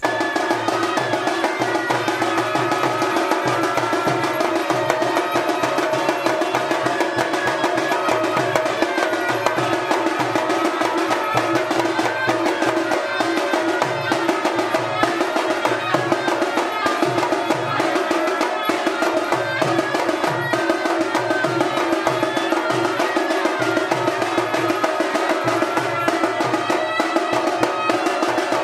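Loud festival music with a steady, driving drum beat under sustained melody.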